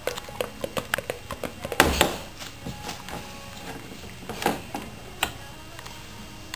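Light plastic clicks and knocks from a toddler handling a plastic Play-Doh extruder press toy: a quick run of clicks in the first second and a half, then scattered knocks, the loudest about two seconds in.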